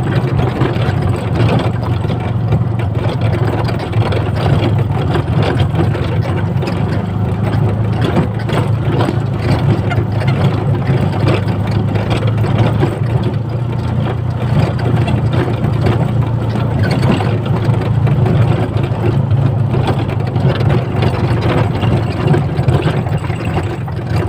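Motor vehicle engine running steadily under way, a loud, even low hum.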